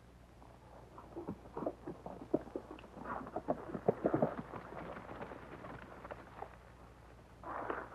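Horses' hooves clip-clopping along a trail in a quick, uneven patter that grows loudest three to four seconds in and then fades away, heard over the steady low hum of an old film soundtrack. A short burst of noise comes near the end.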